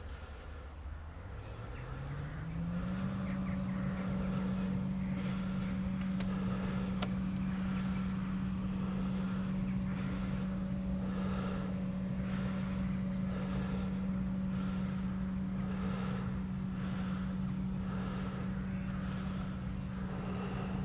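Diesel engine of heavy farm machinery revving up over about two seconds, then holding a steady high-pitched drone.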